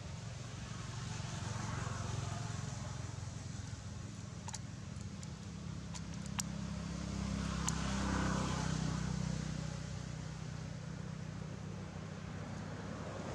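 Steady low rumble of passing vehicles, swelling twice and fading between, with a few sharp ticks in the middle.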